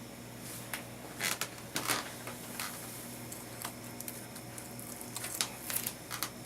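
Scattered faint clicks and rustles over a steady low hum.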